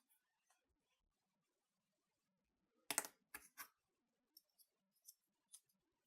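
Small hard tools clicking and tapping as a precision screwdriver and opening-tool kit is handled: a cluster of sharp clicks about three seconds in, then a few fainter single ticks.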